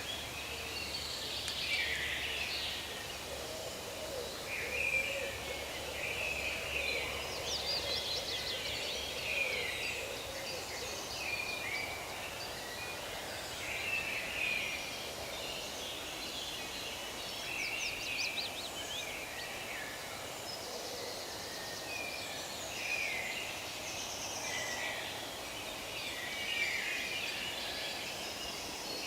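Forest birdsong: several birds calling at once, with overlapping short chirps and quick trills all the way through over a faint steady hiss. Lower, softer calls run underneath in the first third.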